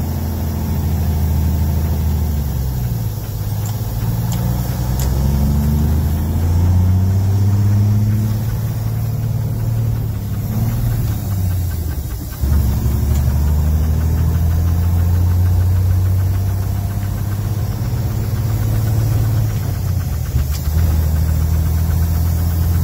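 Diesel engine of a Peterbilt 352 cabover truck, heard from inside the cab, pulling away with heavy throttle while the transmission is stuck in high range. The engine note rises and drops back several times as it works up through the gears, then settles into a steady run from about halfway.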